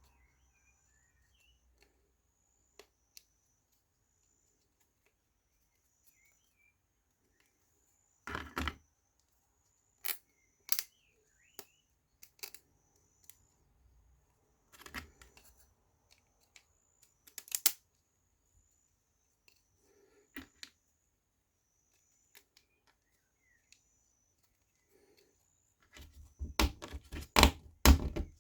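Laser-cut wooden puzzle box pieces knocking and clicking against each other as they are handled and fitted together. The sound comes as scattered single taps, then a quick run of knocks near the end.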